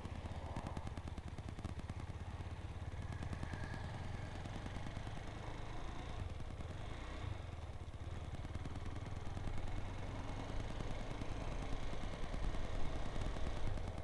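KTM Duke 390's single-cylinder engine running steadily with a fast, even beat, getting a little louder near the end. The owner says it still sounds a bit different after the engine repair.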